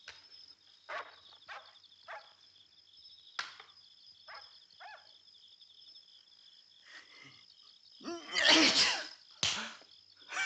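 Steady high-pitched chirping of crickets, with a few short soft knocks scattered through the first half. A loud voice calls out about eight seconds in, with a shorter sound just after.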